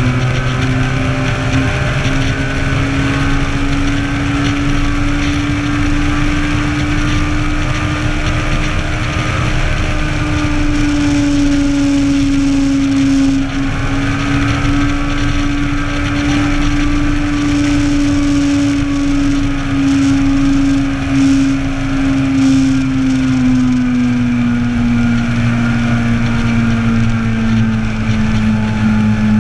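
Inline-four motorcycle engine running at steady revs while riding, with wind rushing past. Its pitch climbs slightly over the first ten seconds and eases down near the end.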